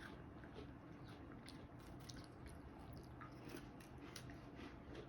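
Faint chewing of a crisp butter cookie: a string of soft, irregular crunches.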